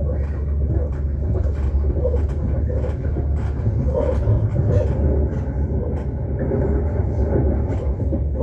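Steady low rumble of an electric passenger train running along the track, heard from inside the carriage, with scattered faint clicks and knocks.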